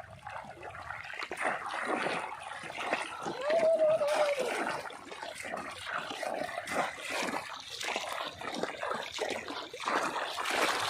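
Shallow water splashing and trickling in many short irregular splashes, with one short pitched call about three and a half seconds in.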